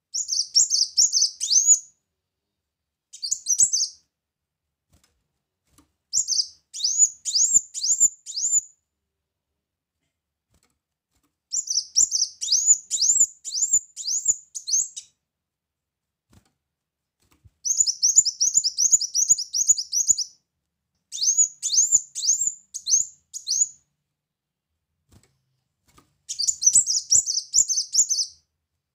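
Caged male kolibri muncang sunbird singing: seven bursts of rapid, high, sweeping chirps, each lasting one to three seconds, with short silent pauses between them.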